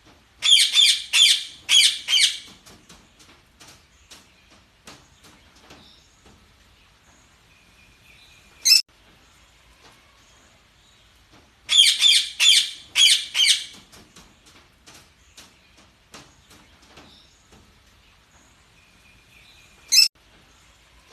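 Budgerigars chirping: two loud bursts of quick, high chirps about ten seconds apart, single sharp calls between them, and soft chatter throughout.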